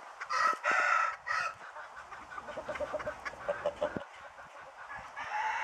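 A rooster crowing in about the first second and a half, followed by hens clucking in short repeated notes, with another call starting near the end.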